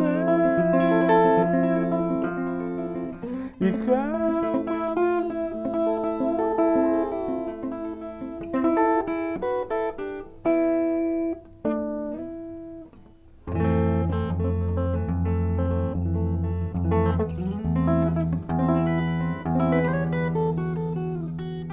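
Archtop hollow-body electric guitar played solo with the fingers: ringing chords and melody lines with a few sliding notes. After a brief drop in level about 13 seconds in, low bass notes come in under the chords, and the playing grows quieter toward the end.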